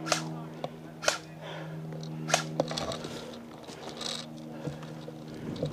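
Several short, sharp snaps, two about a second apart early on and a close pair a little past halfway, over a steady low hum.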